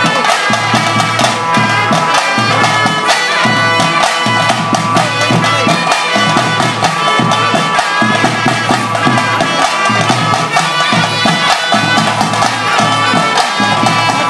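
Traditional kola ritual music: reedy pipes with brass bells playing a continuous melody, with drums beating steadily underneath.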